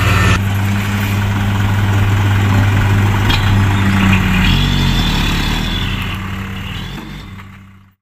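A light dump truck's diesel engine running steadily while the hydraulic hoist tips the raised bed and dumps a load of soil; the sound fades out near the end.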